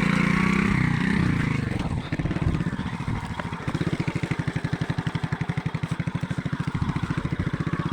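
Alpha moped's small single-cylinder four-stroke engine dropping in revs over the first two seconds, then settling into a steady, evenly pulsing idle.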